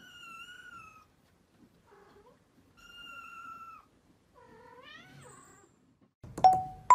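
Kittens mewing: three faint, high, thin mews each under a second long, the last one rising in pitch. Near the end there is a sudden, much louder short tone with a click.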